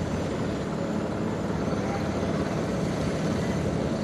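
A steady low rumble that holds at an even level throughout.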